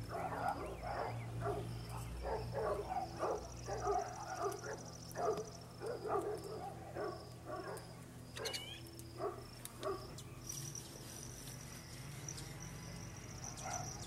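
Outdoor animal sounds: a run of short, irregular calls, several a second, for about the first ten seconds, then thinning out. A high, steady insect-like trill comes and goes behind them, and a single rising chirp comes about two-thirds of the way through.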